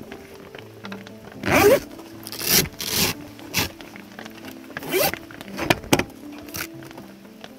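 Zipper on a 2003 Jeep Wrangler TJ's soft top being pulled open around the rear window in a series of rasping pulls. Background music plays underneath.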